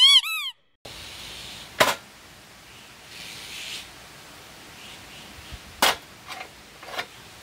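A short cartoon-style transition sound effect of two quick rising-and-falling chirps. Then come sharp metal clacks as a portable butane camping stove and a grill pan are set in place: one about two seconds in and another near six seconds.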